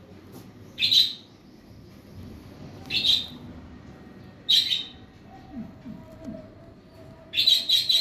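Young ringneck parakeet giving short, sharp chirps, one every second or two, then a quick run of several close together near the end.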